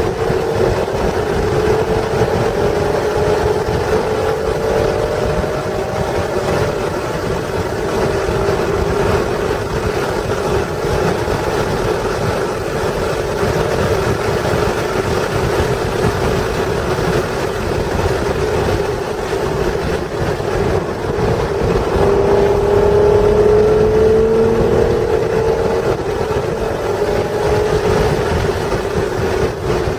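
1996 Acura NSX's stock 3.0-litre V6 running hard at speed, its pitch climbing in several rising sweeps as the car accelerates, the loudest climb about two-thirds through. Steady wind and road noise run underneath.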